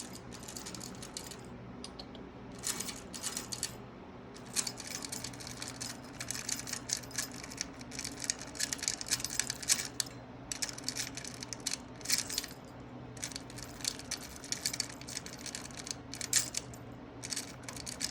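Quick clusters of clicks and rattles from a budgie pecking at and playing with a toy in its cage, coming in bursts with short pauses, over a steady low hum.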